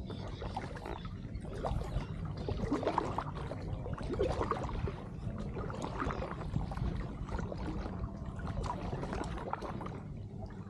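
Kayak paddle strokes through the water, with irregular splashes and drips off the blades, over a steady low rumble.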